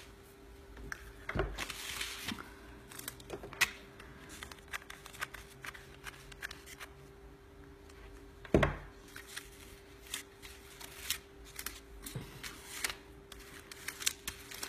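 Cardstock paper petals rustling and crinkling as hands handle and fluff out a paper flower, with many light clicks and taps and two louder thumps, about a second and a half in and about eight and a half seconds in. A faint steady hum runs underneath.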